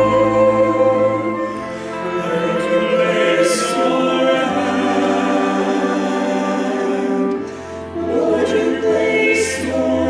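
Choir singing a slow worship song in long held chords that change every few seconds.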